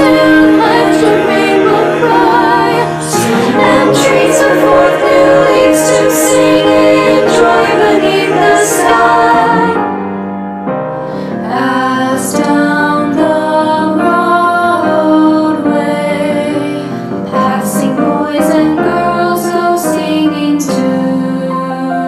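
A choir singing a choral piece in held, changing chords, with a brief softer passage about ten seconds in. It is a virtual-choir recording: the singers were recorded separately and mixed together.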